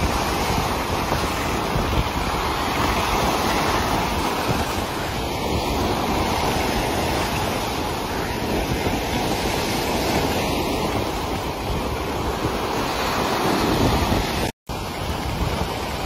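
Sea waves washing and churning into white foam, a steady, continuous rush of surf. The sound cuts out for an instant about fourteen and a half seconds in.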